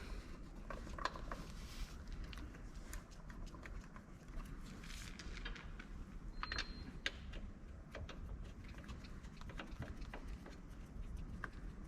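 Faint, irregular mechanical clicks and light taps, with a brief high squeak about six and a half seconds in.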